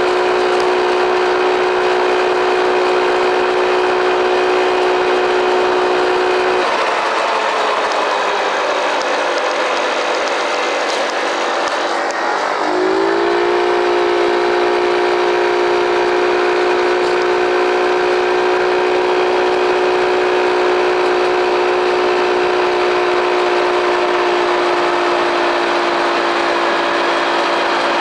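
Small engine of an Arctic Cat mini bike running under way at a steady, high-pitched drone. About seven seconds in the engine tone falls away as the throttle is eased off, and around halfway it revs quickly back up, then holds steady, its pitch sagging slightly near the end.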